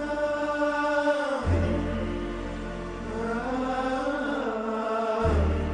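Title music: a sustained vocal chant, long held notes sliding slowly in pitch, over a deep low note that swells in about one and a half seconds in and again near the end.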